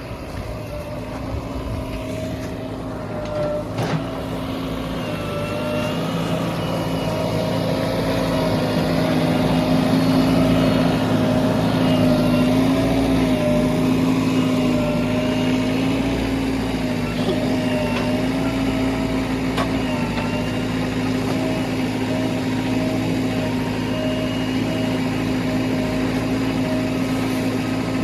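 Heavy diesel engine of a backhoe loader or dump truck running steadily, its pitch wavering slightly. It grows louder over the first ten seconds, then holds level.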